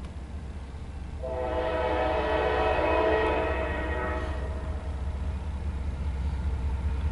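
Diesel freight locomotive's air horn sounding one long chord blast of about three and a half seconds, starting about a second in: the warning signal for the grade crossing ahead. A steady low rumble runs underneath.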